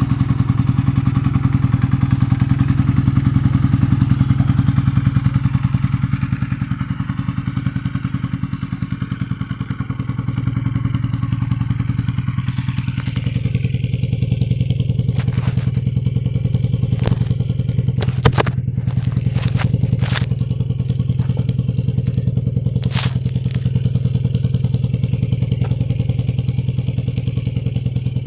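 Honda CB450DX's air-cooled parallel-twin engine running steadily. In the second half a few sharp clicks or knocks sound over the engine.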